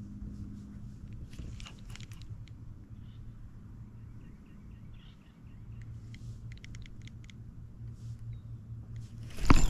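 Low steady hum of a bass boat's electric trolling motor under scattered light clicks and ticks from the spinning reel and rod being worked. A sudden loud burst comes near the end.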